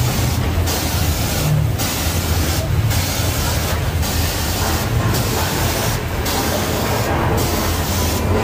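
Earthquake-simulation special effects on a studio-tour set: a continuous low rumble under a loud hiss that drops out briefly about once a second.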